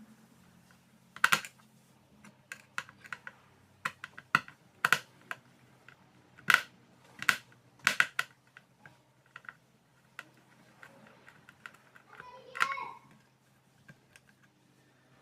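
Irregular sharp clicks and taps of a screwdriver and small screws as a replacement PCB is screwed into a 50 W LED flood light's metal housing, with a louder rasping tap near the end.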